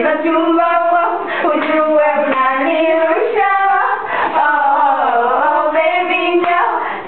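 Girls singing a song together, unaccompanied.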